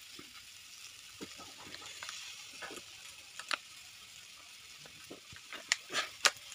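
A man drinking from a thin plastic cup: sharp clicks and swallowing sounds from his mouth and the cup, the loudest cluster near the end, over a faint steady sizzle of frying.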